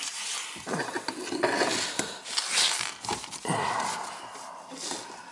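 Irregular rubbing and scraping as an arm works in under a dishwasher, among its wiring and junction box, with a person's strained breathing. It comes in several short noisy bursts.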